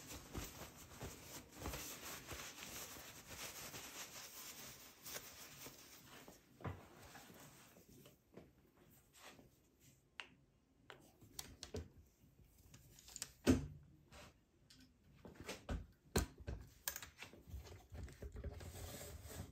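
Faint handling noise: rubbing and rustling, then scattered light clicks and knocks, with one sharper knock about two-thirds of the way in.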